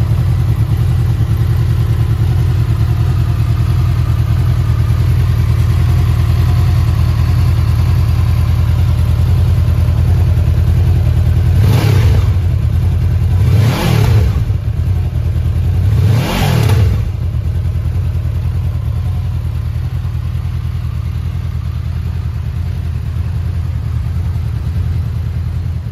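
Honda VFR800F's V4 engine idling steadily, blipped twice about halfway through so the revs rise and fall quickly before settling back to idle.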